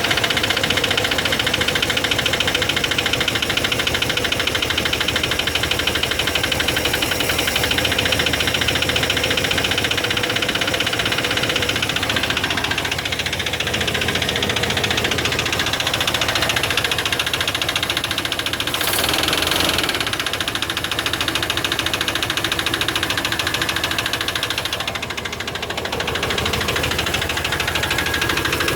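Chevy 350 5.7 L small-block V8 running steadily with a rapid, even clicking from the engine, which the owner puts down to low lubrication after the intake manifold was refitted.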